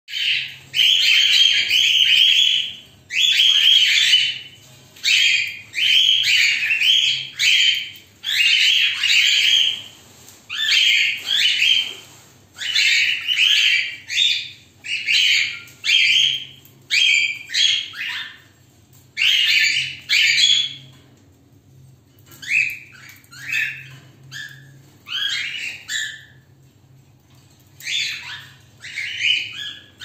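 Cockatiel calling over and over in short chirps and squawks, one after another for the first twenty seconds or so, then in shorter, more scattered chirps.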